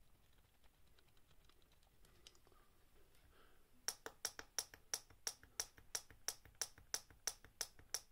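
Rapid, uneven clicking of a tactile push button and the small relay on a timer circuit board, starting about four seconds in. The button is tapped again and again, each press triggering the timer for a pulse of only 10 to 30 milliseconds.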